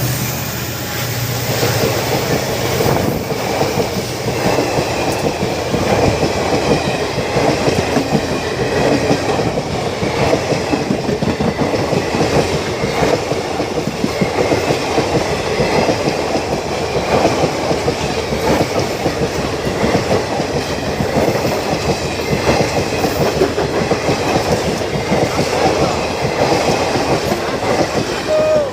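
Kanchan Kona Express coaches passing at speed, their wheels clattering steadily and rapidly over the rail joints.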